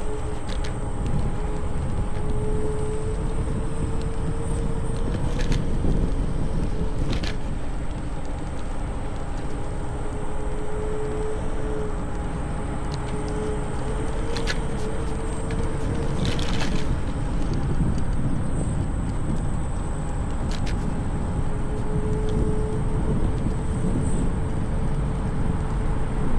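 Electric scooter in motion: a steady rumble of wind on the microphone and wheels on pavement, with a steady electric motor whine that drops out now and then. A few sharp knocks, the loudest about two-thirds of the way in.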